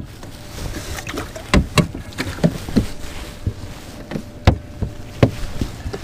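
Irregular knocks and thumps on an aluminum boat's deck as feet and gear shift around, about eight sharp knocks spread unevenly. It is the kind of hull noise that the angler fears spooked the crappie below.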